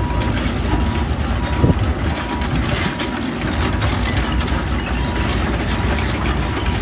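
Heavy diesel earthmoving machinery running, a loud, steady engine din with a deep rumble.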